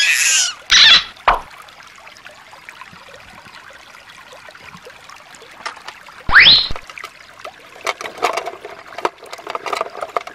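Shallow stream trickling over stones, faint and steady. A few louder sudden sounds break in during the first second, and a quick rising sound comes about six seconds in.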